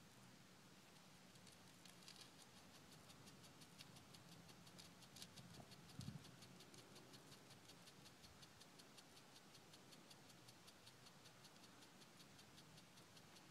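Near silence, with a faint, rapid, even high-pitched ticking, about five ticks a second, and one soft low thump about six seconds in.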